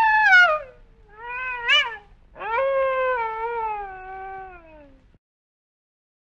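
Wolf howling in a few calls. A loud howl dies away with falling pitch, then comes a short howl that rises and falls about a second and a half in. A longer howl follows, sliding slowly downward until it fades about five seconds in.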